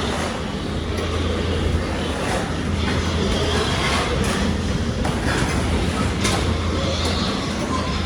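Steady machine noise: a low hum under an even hiss, with a few faint clicks.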